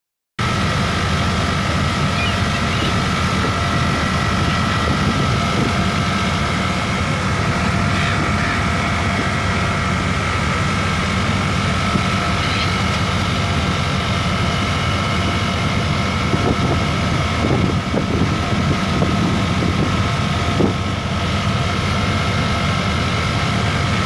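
Boat's engines running steadily: a constant low rumble with a steady high whine on top, mixed with wind noise.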